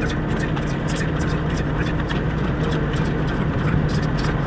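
Steady low hum of idling diesel semi-truck engines, with quick, irregular scuffs of sneakers on asphalt during side-to-side footwork.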